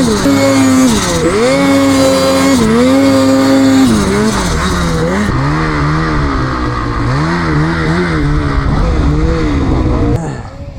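Snowmobile engine revving up and down under changing throttle while riding, with wind rushing over the microphone. The sound drops off sharply a little before the end.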